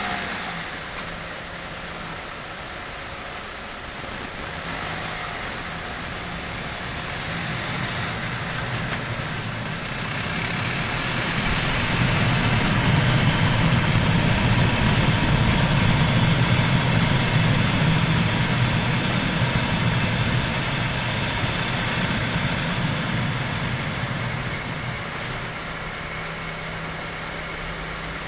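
Tyre, road and engine noise heard from inside the front wheel well of a Mitsubishi Chariot on the move, with the 2–4 kHz range boosted. Over it runs a hissing, swishing shaa-shaa noise that the owner takes for a dragging brake. Everything grows louder from about twelve seconds in, then eases off again a few seconds before the end.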